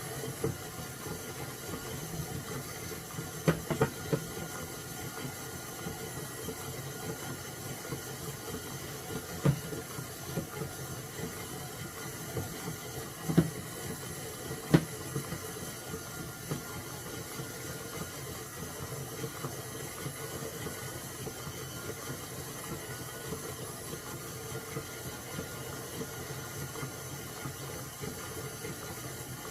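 Steady background hiss with a few short knocks and clicks, the loudest about halfway through, as sticky no-knead bread dough is worked by hand and scraped out of a mixing bowl.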